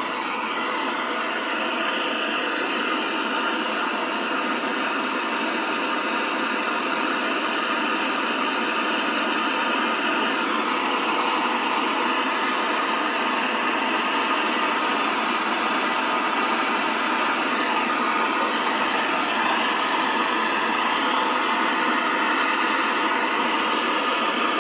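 Torch flame burning with a steady hiss, heating a starter-cable lug so solder melts into it and fills it.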